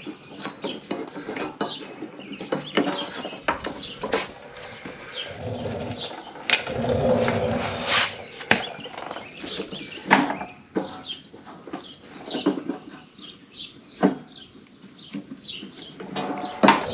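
Metal clinks and knocks of hands and tools working a jammed belt off the pulleys of a John Deere L120 mower deck, with a longer rubbing, scraping stretch about a third of the way in. The belt has flipped over inside out and wrapped around a pulley.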